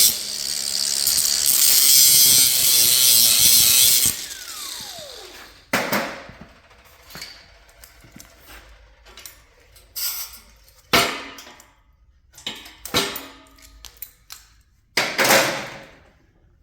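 Electric grinder grinding down a small latch part, switched off about four seconds in, its whine falling as it spins down. After that, scattered knocks and clatters as the part and tools are handled.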